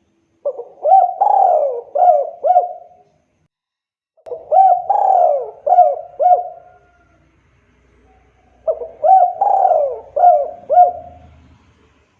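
Spotted dove (tekukur) cooing: three phrases of four or five coo notes each, a few seconds apart.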